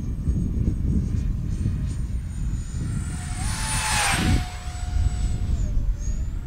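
Twin 50 mm electric ducted fans of an RC Boeing 737 model airliner whining in flight over a steady low rumble. The sound swells to a peak as the model passes close about four seconds in. The whine steps up in pitch just before the pass and drops near the end.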